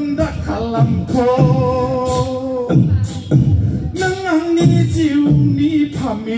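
A man singing into a microphone through a PA over dance music with a steady beat of about one hit a second. He holds long notes from about one to nearly three seconds in, and again from about four to six seconds in.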